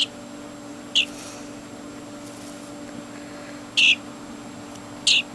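A small animal's short, high-pitched chirping calls, four of them spaced a second or more apart, over a steady low hum.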